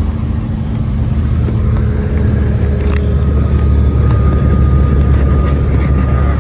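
Off-highway logging truck's diesel engine running under way, a steady low drone heard from inside the cab that grows a little louder about a second in, with a few light clicks from the cab.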